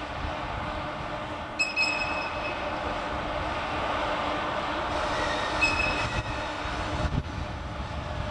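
JNR Class EF64 electric locomotive rolling slowly, a steady mechanical running noise with two short high squeals, about a second and a half and five and a half seconds in, and a brief knock near the end.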